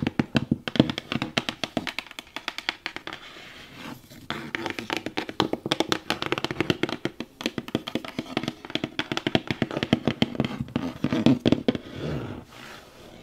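Fast fingertip and fingernail tapping on a cardboard shoe box, close to the microphone, with a brief lull about four seconds in.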